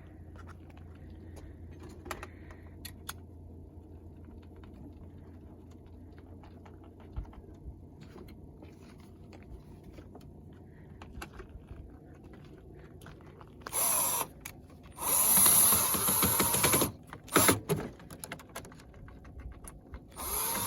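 Small clicks of parts being handled, then a cordless drill/driver running in short bursts, one of about two seconds, as screws are driven into a generator's housing during reassembly.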